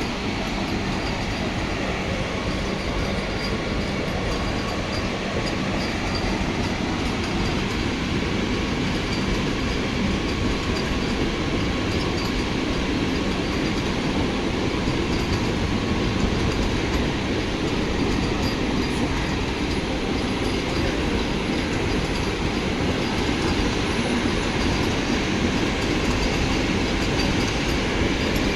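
A train running on its rails: a steady rumble of wheels and carriages that grows slightly louder through the stretch.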